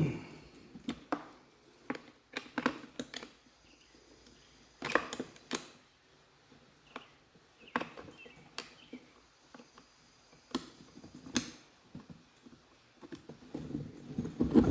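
Irregular clicks and light knocks of a hand tool on the metal parts of a surface cleaner, with a rougher scraping stretch about five seconds in, as a fastener on the swivel assembly is worked loose.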